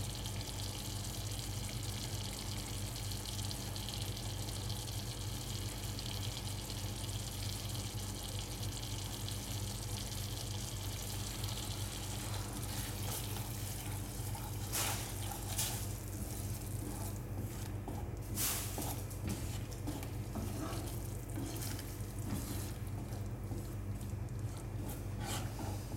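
Thick masala simmering in a frying pan over a gas flame: a steady sizzling hiss over a low hum, with a few short clicks in the second half. A wooden spatula scrapes through it near the end.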